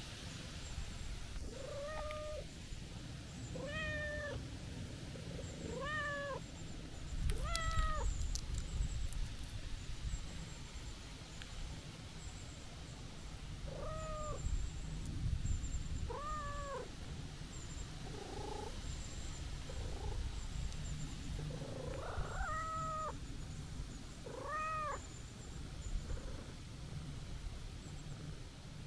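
Calico cat meowing repeatedly in short, arched meows that rise and fall in pitch, about eight in all: four in quick succession, a pause, then more, sounding pleased. A steady low rumble lies underneath.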